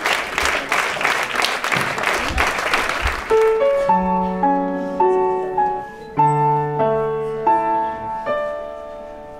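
Audience applauding, dying away about three seconds in as a short piano melody starts: the intro jingle of an educational video.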